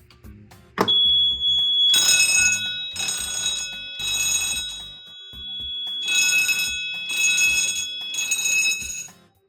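Fire alarm horns on a Notifier System 5000 panel's notification circuits sounding in the temporal-3 pattern, three short blasts and a pause, two rounds, after a smoke detector is set off. It opens with a sharp click, and a steady high tone starts then and runs under the horns until near the end.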